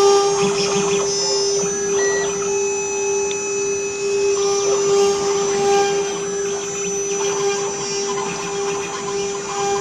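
Stone CNC router's spindle running with a steady high whine, over an uneven gritty noise of the bit cutting stone that swells and eases.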